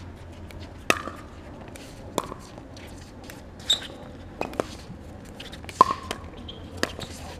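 Pickleball rally: hard paddles striking the plastic ball, with the ball bouncing on the court, heard as about eight sharp pocks at uneven spacing. Two come in quick pairs around the middle, and the loudest falls a little before the end.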